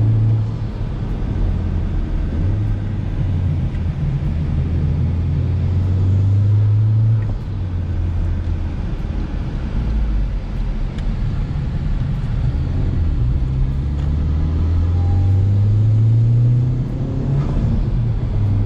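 Honda Civic Type R's turbocharged 2.0-litre four-cylinder engine, breathing through a K&N Typhoon cold air intake, pulling under acceleration. The engine note climbs steadily in pitch, drops back about seven seconds in, climbs again, then falls near the end.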